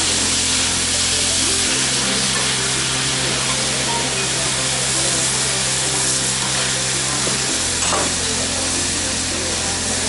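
Food sizzling on a hot teppanyaki griddle in a loud, steady hiss while metal spatulas work it. Background music with held low bass notes plays underneath, changing note twice.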